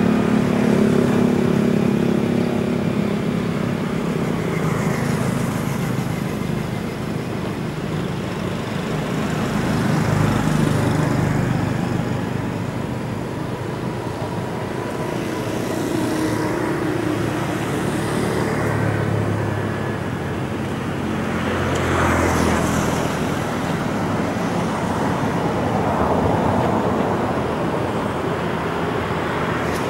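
Steady road traffic noise: engines of passing vehicles humming, swelling and fading as they go by, with a louder pass about two-thirds of the way in.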